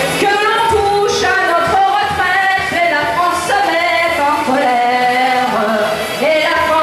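A song with sung vocals and music playing loud, with melodic held notes, from loudspeakers on a sound truck.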